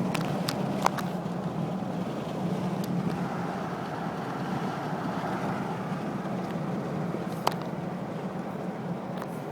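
Car driving: steady engine and road noise with a constant low hum, and a few sharp clicks in the first second and once more about seven and a half seconds in.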